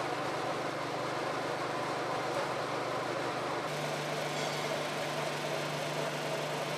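Small electric flat-die pellet mill running steadily with an even mechanical hum, just after start-up, during the grinding-in (running-in) of its new die.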